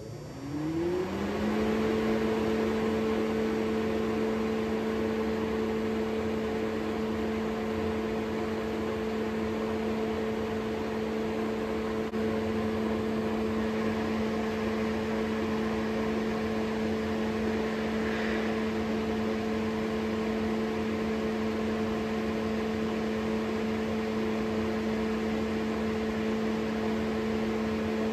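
Exhaust fan in the hood of a Dunel GW1000 glow wire tester starting up, rising in pitch for about a second and a half, then running steadily with an even hum and a rush of air.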